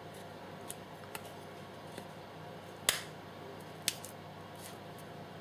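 Metal spoon and spatula clicking and scraping against a cake pan as batter is spread and scraped off. A few light clicks, with two sharper ones about a second apart in the middle.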